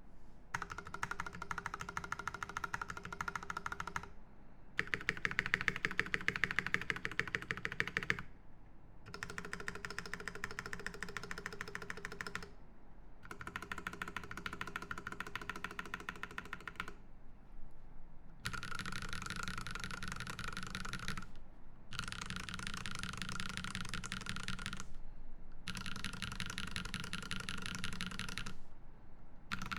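Fast typing on a Space65 CV mechanical keyboard with lubed Drop Holy Panda tactile switches on a carbon fibre plate and GMK keycaps: dense, rapid key clacks in runs of about four seconds, broken by six short pauses.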